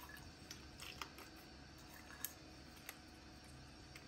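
A few faint, sharp clicks of hazelnuts knocking against a small glass bowl as they are picked out by hand, over a low steady hum.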